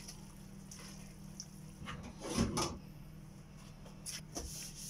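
Plastic spaghetti server stirring and tossing glass noodles and vegetables in a stainless steel pan. There are a few scrapes and knocks, the loudest about two and a half seconds in and a couple of lighter taps near the end, over a steady low hum.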